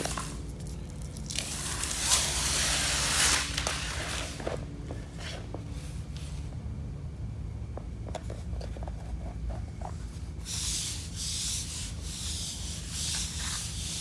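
Release paper being peeled off the tacky back of a self-adhesive luxury vinyl plank, two long scratchy tearing rips about a second and a half in and again near the end, with small clicks and taps as the plank is handled and pressed down, over a steady low hum.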